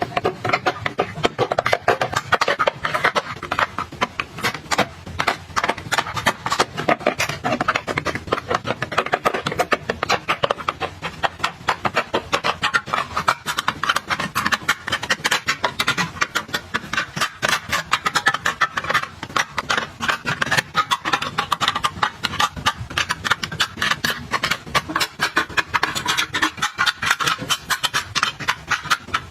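Rapid tapping, clicking and clattering of items and packaging being handled and set down, many small knocks a second.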